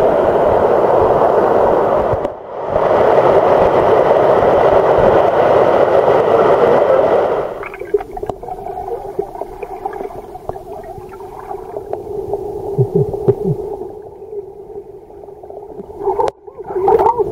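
Stream water rushing over rocks, loud and steady, with a brief dip a couple of seconds in. About 7.5 seconds in, the sound turns muffled and much quieter as it is heard from underwater, a low hum of water with small knocks and bubbling, and a short loud splash-like burst near the end.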